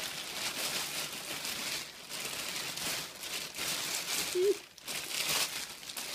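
Black plastic sack and clear plastic bag crinkling and rustling as they are pulled open and handled, with a couple of short pauses.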